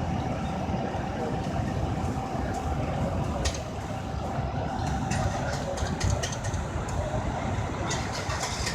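Fire engine's diesel engine idling with a steady low rumble, with scattered short clanks and knocks as equipment is stowed.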